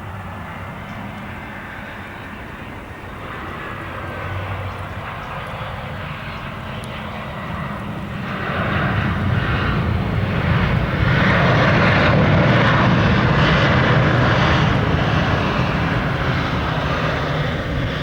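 Jet engines of an Airbus A319 airliner landing, a steady roar that builds about eight seconds in, is loudest a few seconds later and eases a little near the end.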